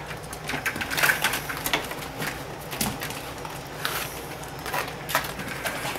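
Vertical blind slats and a sliding glass door being handled, giving scattered, irregular clicks and clatters.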